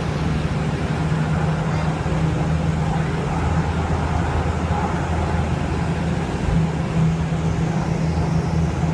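Seattle Link light rail car running at speed, heard from inside the car: a steady low hum over an even rumble of wheels on track.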